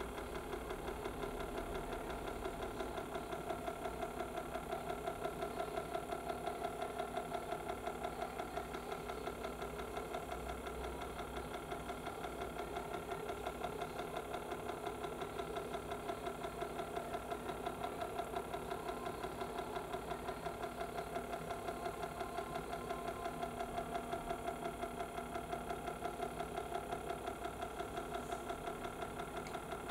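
Small electric motor of a rotating display turntable running steadily, a hum with a regular pulse, as it slowly turns the toy engine around.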